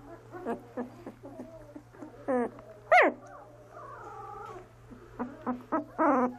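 Young Doberman puppies whimpering and squealing: a string of short, high cries, with one loud squeal falling in pitch about three seconds in, a softer wavering whine after it, and a quick run of cries near the end.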